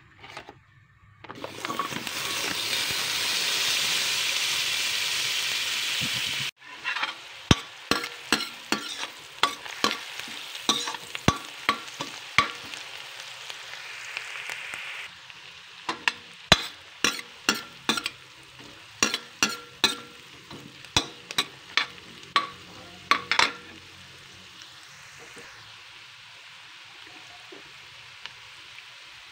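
Chopped garlic and onion sizzling in hot fat in a stainless steel pan: first a loud, even sizzle for about five seconds that cuts off abruptly, then a quieter steady sizzle under rapid clicks and knocks of a utensil stirring against the pan. The clicking stops about two-thirds of the way through, leaving the sizzle alone.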